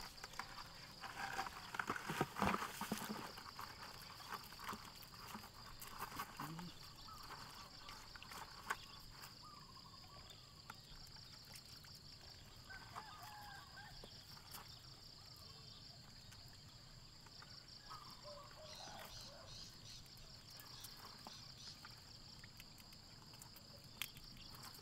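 Insects trilling steadily, a high, fast-pulsing drone. In the first few seconds it is joined by loud rustling and knocking as a mesh fish-trap net is handled over a plastic bucket.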